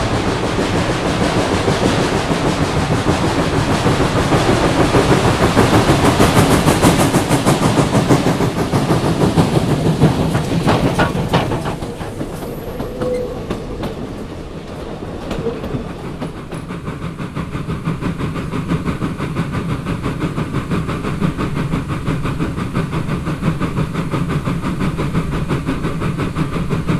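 Reading & Northern 425 steam locomotive working hard while climbing, with a loud, rapid exhaust beat. It is loudest in the first half and drops off sharply about twelve seconds in, while the train's wheels keep running on the rails.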